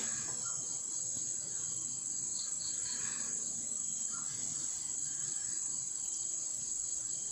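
A steady, high-pitched chorus of crickets, with a few faint clicks of spoons against a plate as people eat.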